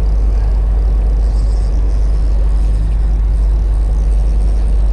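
Steady low rumble of wind buffeting the camera microphone, with no clear sound from the fishing itself.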